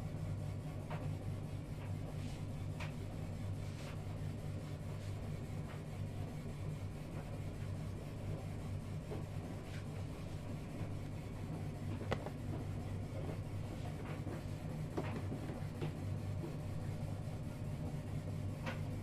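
A steady low mechanical hum, with a few light clicks and taps scattered through it.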